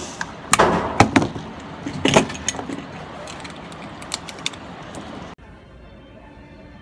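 A series of sharp metallic clicks and clatter, several of them close together, over the first four or five seconds. About five seconds in the sound cuts off suddenly to a low, steady background.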